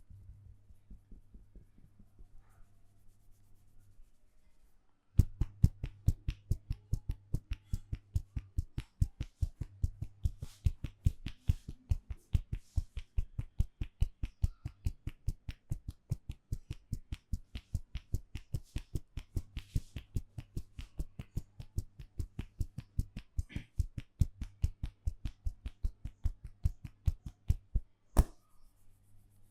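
Hand strikes of a percussive head massage: after a few seconds of faint soft thumps, a fast, even run of sharp slaps or taps begins about five seconds in, several a second, with one sharper snap near the end. A faint low hum runs underneath.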